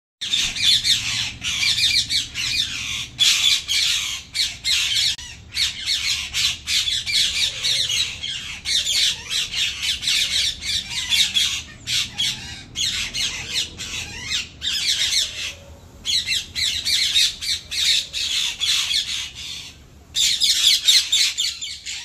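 A flock of rose-ringed parakeets squawking, many harsh calls overlapping almost without pause, with two brief lulls in the second half.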